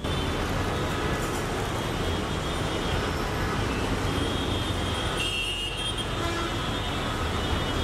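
Steady street traffic noise: the rumble of passing vehicles, with a brief faint high tone a little past the middle.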